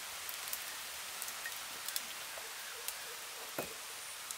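Wood-fired hearth with oil heating in an iron wok: a steady hiss with scattered small crackles and pops, and one louder knock near the end.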